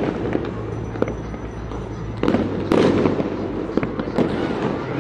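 Many fireworks and firecrackers going off at once, a scattered run of pops and bangs over a rumbling background, with a louder, busier spell about halfway through.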